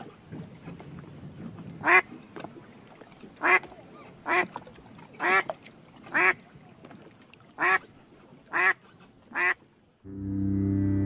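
Domestic duck quacking: eight loud, short quacks at uneven intervals. Soft, steady background music begins near the end.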